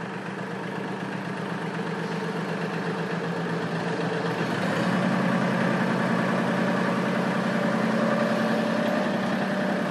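Mahindra 1526 tractor's three-cylinder diesel engine running as the tractor moves slowly. A little under halfway through, the engine note steps up in pitch and gets louder.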